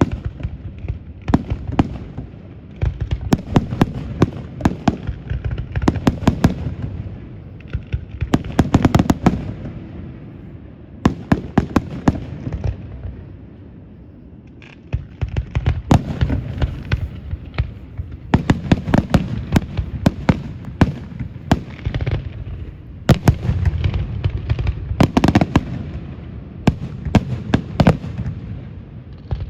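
Fireworks display going off in clusters: low booms from bursting shells mixed with many sharp crackling pops, with a brief lull about halfway through.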